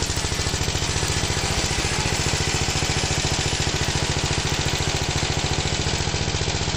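Engine sound of a miniature remote-control hand tractor: a steady, fast, even chugging like a small diesel engine at idle.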